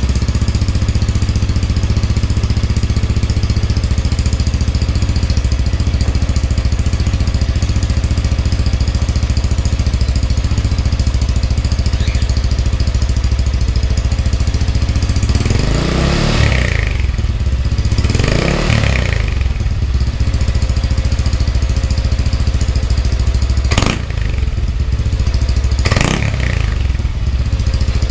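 Yamaha NMAX scooter's single-cylinder engine idling through an aftermarket OPP Podium power pipe exhaust. The throttle is blipped in three short revs, two close together past the middle and one near the end, with a sharp click in between.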